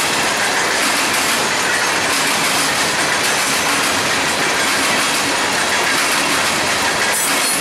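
Freight train cars rolling past close by: a steady, loud noise of steel wheels running on the rails.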